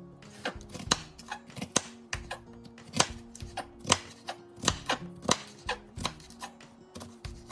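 Kitchen knife slicing bell peppers into julienne strips on a cutting board, quick repeated knocks at about three to four a second, over background music.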